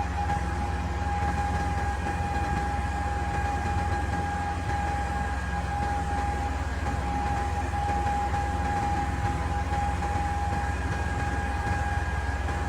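Large diesel excavator engine running steadily under a deep low rumble, with a constant high-pitched whine held on one note.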